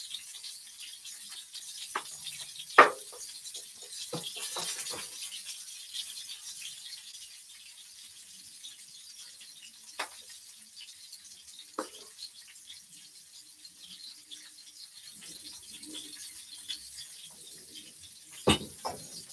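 Scattered knocks and clinks of a stainless steel mixing bowl and utensils being handled on a kitchen counter. The loudest knock comes about three seconds in, a few quick clicks follow a second later, and single clinks sound around ten, twelve and eighteen seconds.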